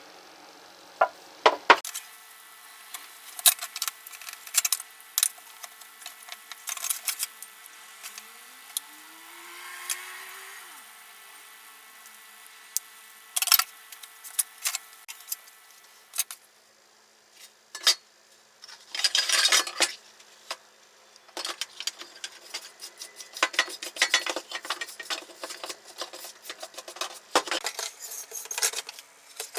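Hand work on metal tool parts: irregular sharp clinks, taps and scraping, with a short rising tone about nine seconds in and a brief lull near the middle.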